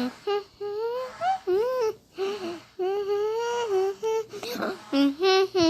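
A young child's high-pitched voice whimpering and fussing in a string of short, wavering cries.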